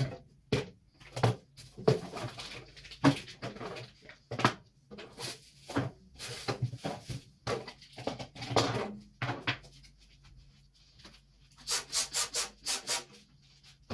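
Food containers and packages being handled and set down while a fridge is organized: a string of irregular knocks, scrapes and rubs, with a quick run of about six sharp rustles near the end. A faint low hum runs underneath.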